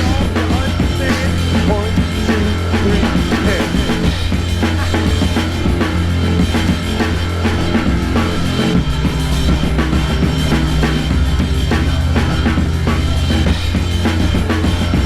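Rock music with a drum kit and a sustained bass line that shifts pitch a few times.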